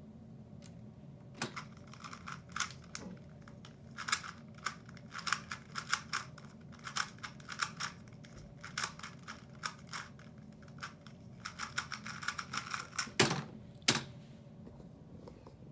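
GAN 249 v2 2x2 speed cube turned fast by hand during a timed solve of about twelve and a half seconds: a quick, uneven run of plastic clicks and clacks. Near the end come two loud knocks as the cube is put down on the desk and the keyboard is struck to stop the timer.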